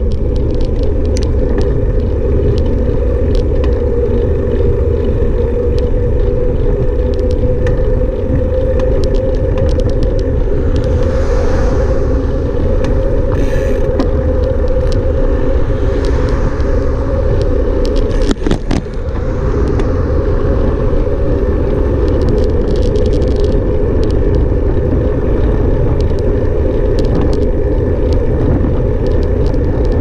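A car driving: a steady low rumble of engine and road noise, with scattered small knocks and rattles.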